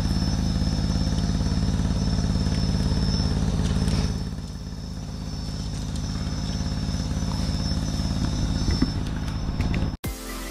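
Small engine running steadily with an even low chug, a little quieter from about four seconds in, cut off suddenly near the end.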